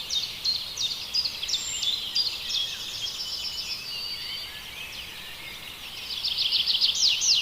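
Repeated high-pitched chirping calls: quick falling chirps and rapid trills, fading somewhat in the middle and growing louder again near the end.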